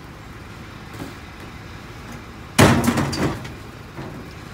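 Landscaping equipment being loaded into a pickup truck's bed: a loud clattering bang a little past halfway that lasts under a second, with lighter knocks about a second in and near the end.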